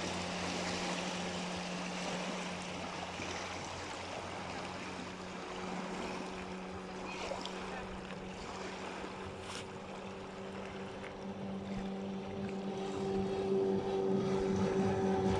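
Yamaha outboard motor running steadily, with water and wind noise; the engine note grows louder and fuller in the last few seconds.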